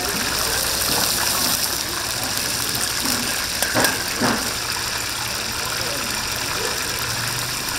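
Whole chicken deep-frying in a vat of hot oil: a steady hissing sizzle, with two short knocks about four seconds in.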